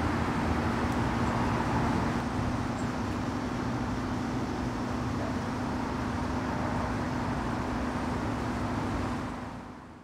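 Steady outdoor background noise with a constant low hum, fading out near the end.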